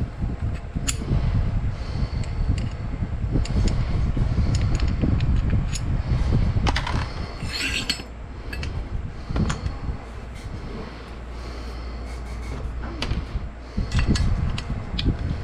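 Small metal parts of an AR-style rifle clicking and clinking during disassembly, with a short rattling scrape about halfway through, over a steady low rumble.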